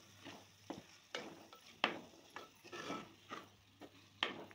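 A spoon stirring dried mutton pieces through the tempering in a clay pot, with irregular scrapes and knocks against the pot.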